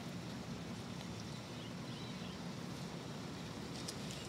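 Steady outdoor background noise, an even low rush, with a couple of faint bird chirps about two seconds in.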